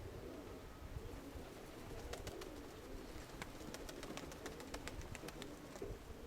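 Domestic pigeons cooing, with wind rumbling on the microphone. A run of sharp clicks comes through the middle.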